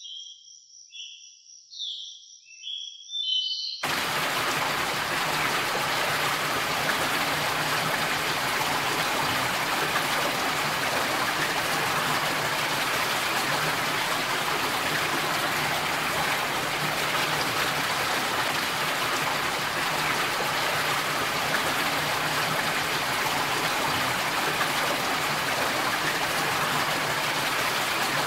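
A few short, high chirping notes, then from about four seconds in a loud, even rushing noise like running water.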